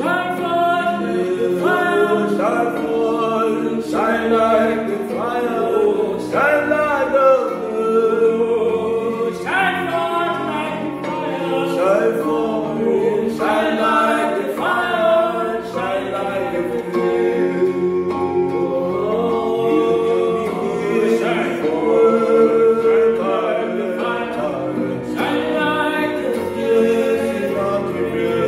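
Two male voices singing a worship song together, accompanied by an electronic keyboard playing sustained chords.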